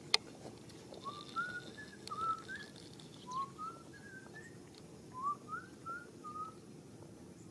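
A string of short whistled notes, each sliding upward, at shifting pitches in a tune-like run, starting about a second in, over a faint steady background hum. A single sharp click comes just at the start.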